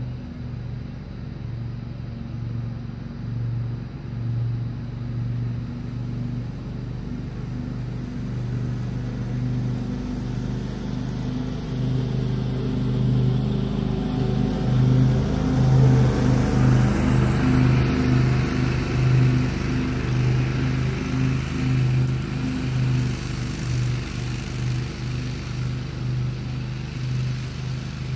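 Grasshopper Model 612 zero-turn mower running steadily as it is driven across the lawn. It grows louder as it passes close about halfway through, then fades as it moves away.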